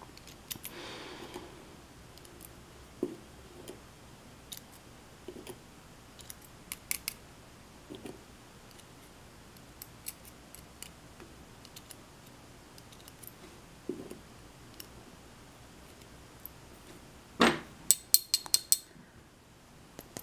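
Small metallic clicks and ticks of steel tweezers and lock pins as pins are placed one by one into a brass lock cylinder. A quick run of sharper, louder clicks comes near the end.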